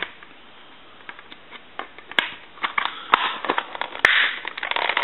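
The plastic housing parts of an AT&T 210 Trimline phone being handled and fitted together: scattered plastic clicks and scraping, with a sharp click about four seconds in.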